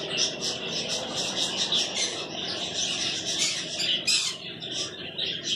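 Many small cage birds chirping and chattering at once, a dense, continuous high-pitched twittering with no pauses.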